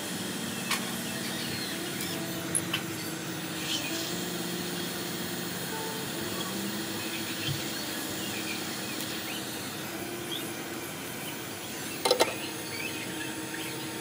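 Hot air rework station blowing steadily to desoldering an 8-pin chip from a laptop motherboard, with a few light clicks and a sharp double click near the end.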